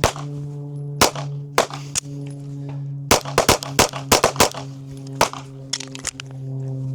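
Pistol shots from a Glock: a string of about fifteen sharp reports at an uneven pace, coming fastest in a quick burst around the middle. A steady low hum runs underneath.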